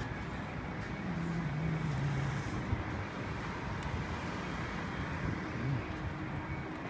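City street traffic noise, steady, with the low hum of a vehicle engine passing about a second in.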